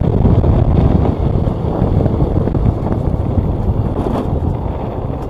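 Wind buffeting the microphone of a moving motorcycle, with the motorcycle's engine and tyres running steadily underneath.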